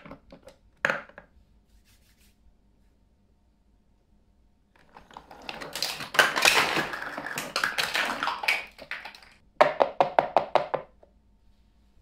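Small hollow plastic toy tea set pieces (cups, teapot, saucers) knocking and clattering together as they are handled and gathered up. A single clack near the start and another about a second later, a dense stretch of clatter from about five to nine seconds in, then a quick run of sharp clicks.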